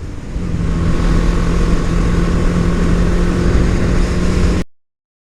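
Motorcycle engine running at a steady cruise, with rushing wind noise. It cuts off abruptly about four and a half seconds in, leaving silence.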